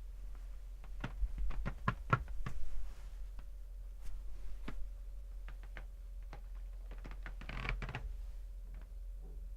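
Footsteps on a creaking floor: an uneven run of knocks and taps from steps, thickest in the first three seconds, with a longer, noisier creak near the end. A faint steady hum lies underneath.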